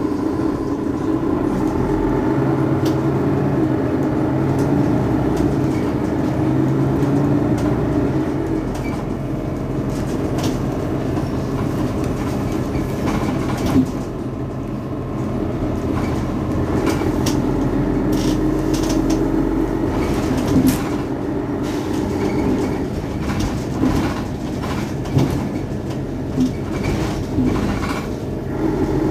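Mercedes-Benz Citaro Facelift city bus engine idling steadily while the bus stands at a stop, with scattered clicks and knocks in the second half.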